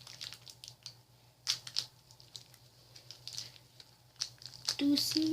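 Plastic toy-pack packaging crinkling and crackling in short, irregular bursts as it is handled and opened, loudest about a second and a half in.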